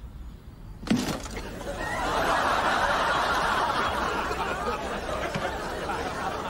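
A sharp knock about a second in, followed by sustained studio audience laughter.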